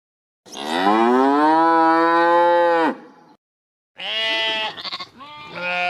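A cow mooing once in a single long call of about two and a half seconds, rising in pitch at the start and then held. After a pause, sheep bleat in two shorter calls near the end.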